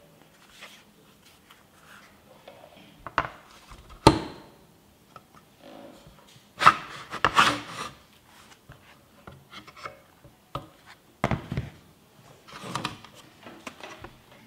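Hard plastic casings of a Bosch 24V battery pack and its charger being handled on a wooden bench: scattered clicks and knocks, with the pack scraping as it is slid onto the charger. The sharpest click comes about four seconds in, and the longest scrapes about halfway through and again a few seconds before the end.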